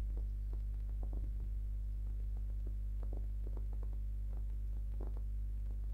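Steady low electrical mains hum with its overtones, with faint scattered clicks from a computer mouse and keyboard in use.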